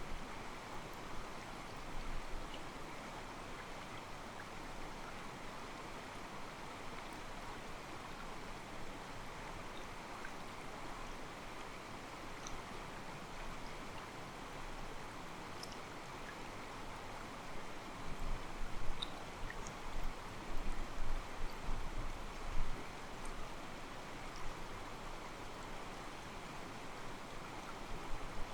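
Mountain stream flowing and sloshing against rocks in a steady, even rush, with faint short bird chirps now and then. About two-thirds of the way through, a few seconds of low rumbling surges rise above it.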